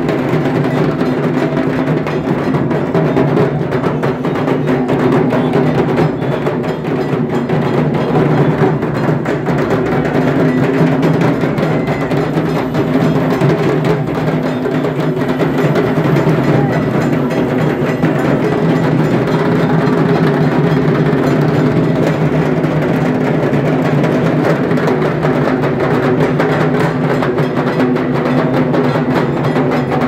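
A massed band of dhaks, the large Bengali barrel drums, about a hundred beaten together at once. The result is a dense, unbroken wall of rapid drumming that keeps going without a pause.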